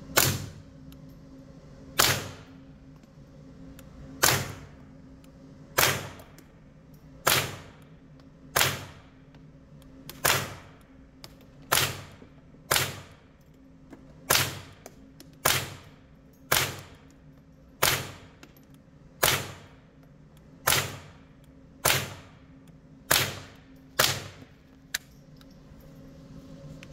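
Suppressed HK416 .22 LR rifle with a Yankee Hill Phantom 22 suppressor firing in slow semi-automatic fire, about nineteen shots a second or so apart. Each shot is a sharp crack with a short echoing tail from the indoor range.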